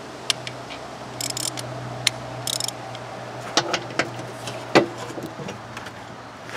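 Hand ratchet and socket working a stuck engine-mounting bolt through a steel mower deck: two short bursts of rapid ratchet clicking and several sharp metallic knocks, over a steady low hum.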